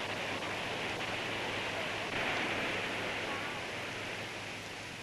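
Steady rushing noise of flood water, heard through the hiss of an early 1930s optical film soundtrack.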